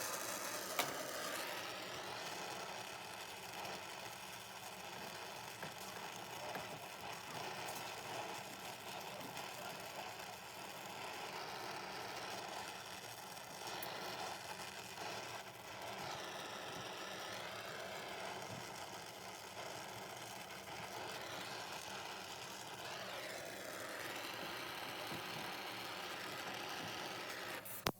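Brazing torch flame burning steadily as copper refrigerant lines are brazed onto a replacement thermostatic expansion valve; a steady noise that swells slightly now and then.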